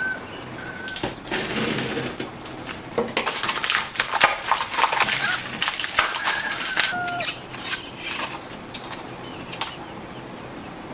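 Bubble wrap and plastic packaging crinkling and crackling as it is pulled open by hand, busiest in the middle and thinning out near the end. A few short high chirps sound now and then.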